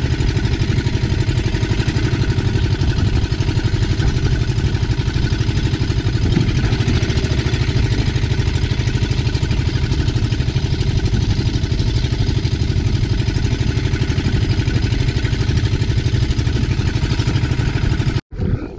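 Engine of a motorised outrigger fishing boat (bangka) running steadily under way, with a fast, even firing pulse, over the hiss of wind and spray. It cuts off suddenly near the end.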